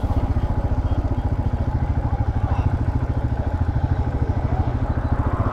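Royal Enfield Himalayan 411's single-cylinder engine running steadily, a fast even train of low exhaust pulses.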